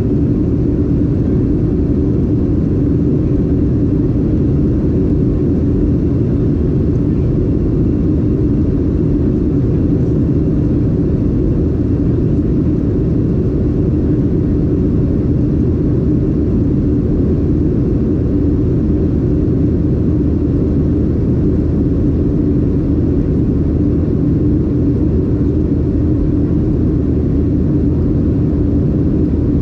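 Steady engine roar of a Boeing 737-800's CFM56 turbofans heard from inside the passenger cabin, with a constant hum running through it.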